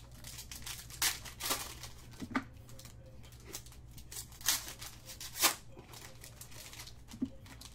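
Trading card pack wrappers being torn open and crinkled, in short irregular rustles and rips, with the loudest two about four and a half and five and a half seconds in, over a faint steady low hum.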